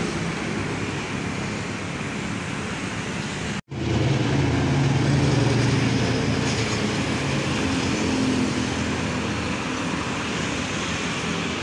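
Road traffic with tyre and engine noise; the sound drops out for an instant about four seconds in. After that, a diesel tractor-trailer hauling a shipping container passes close, its engine note louder for the next few seconds over the traffic.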